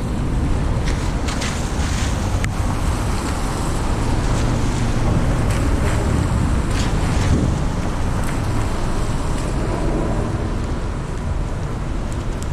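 Car driving on a wet road in the rain: a steady low rumble of road and tyre noise, with wind buffeting the microphone and a few short clicks.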